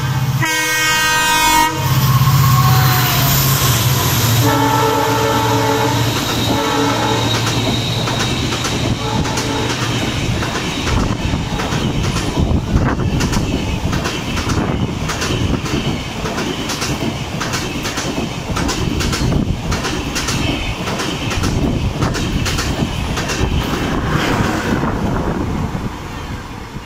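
WDP4 (EMD GT46PAC) diesel locomotive passing at speed: its horn chord sounds twice, the second about four seconds in, over the deep rumble of its two-stroke EMD diesel engine. Then its LHB passenger coaches rush past with a fast clickety-clack of wheels over rail joints that tails off near the end as the train leaves.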